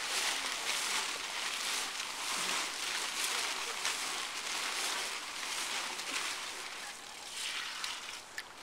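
Concrete mix of stone, sand and cement being rolled back and forth in a plastic tarp: a steady gritty scraping and crunching of gravel with the tarp rustling, as water is poured in from a bucket. It eases off somewhat near the end.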